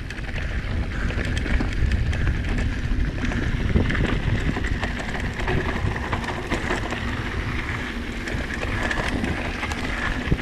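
Mountain bike riding down a dirt and gravel trail: a steady low rumble of wind on the microphone with tyre noise and frequent small clicks and rattles from the bike over the rough ground.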